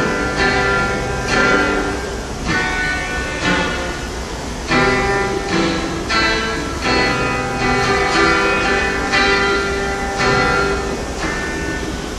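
Stratocaster-style electric guitar played through a small combo amp, strumming chords about once a second and letting each one ring.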